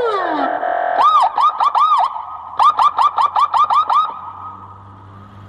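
Electronic vehicle siren (SGU special-signal unit) through a horn loudspeaker: a falling pitch sweep ends, then about a second in a short run of quick rising-and-falling chirps, then a faster run of about nine chirps before it fades out.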